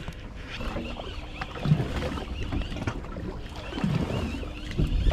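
Steady low rumble of a fishing boat at sea, with wind and water noise and a few faint knocks.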